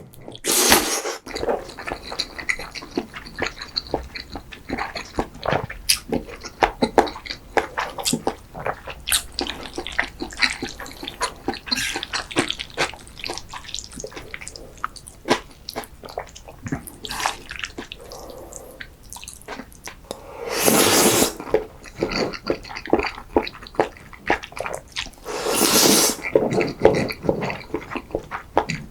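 Close-miked eating of creamy food: wet, sticky chewing with many quick mouth clicks, and two louder, longer stretches about twenty and twenty-five seconds in.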